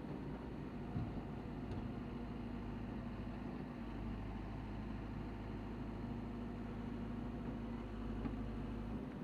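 Caterpillar 422F backhoe loader's four-cylinder diesel engine idling steadily.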